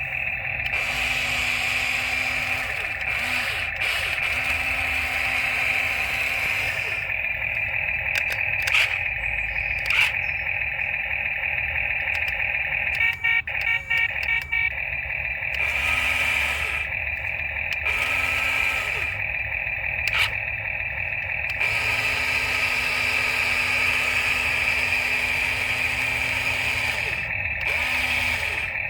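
Small electric gear motors of a toy RC excavator whining, switching on and off repeatedly as it is driven, with a few clicks.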